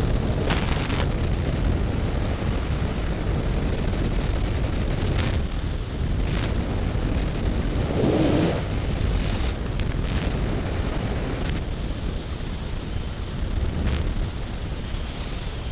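Skydiving freefall wind rushing over a helmet camera's microphone, a steady loud roar with a few brief gusts.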